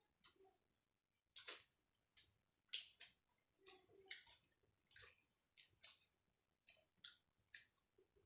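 Faint eating sounds of a rice meal: short wet smacks and clicks of chewing, about one or two a second.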